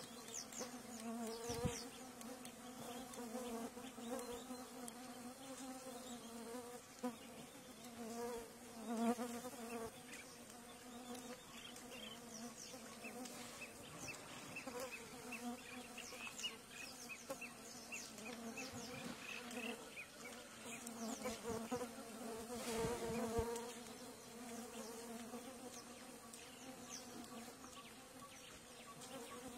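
Flying insects buzzing close by, a steady droning hum that swells and fades as they come and go.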